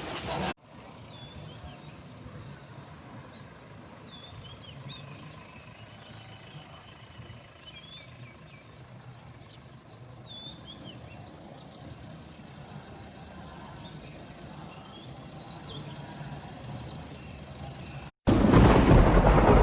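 Quiet outdoor background with small birds chirping now and then and a faint, rapid high ticking, then a sudden loud burst of noise lasting about two seconds near the end.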